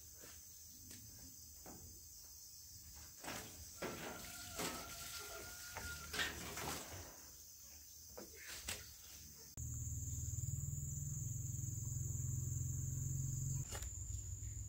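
Insects trill steadily as a high thin background, with scattered light knocks and rustles in the first part. About two-thirds of the way in, a louder low steady hum starts and then stops shortly before the end.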